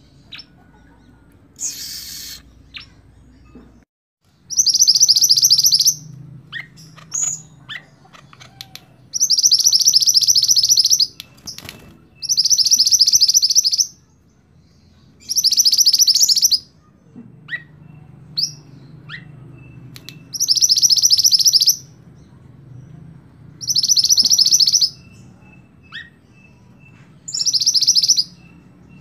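Red mantenan, a black-and-red songbird, singing a loud, high, rapid rolling trill of about a second and a half, seven times over, with faint short chirps in between.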